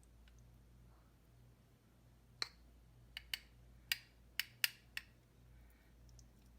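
A string of about seven light, sharp clicks and taps of kitchen utensils against dishware, starting about two and a half seconds in, over a faint steady hum.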